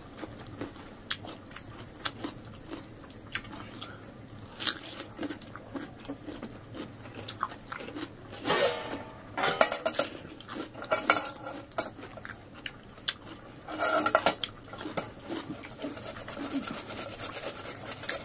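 Kitchen utensils and metal dishes clinking and knocking, with a few louder bouts of clatter in the second half.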